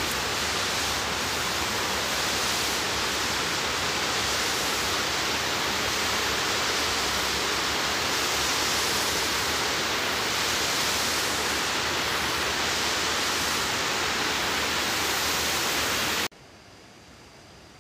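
River water overflowing a dam spillway and cascading down rock ledges: a steady, loud rushing. It cuts off abruptly near the end, leaving only a faint hiss.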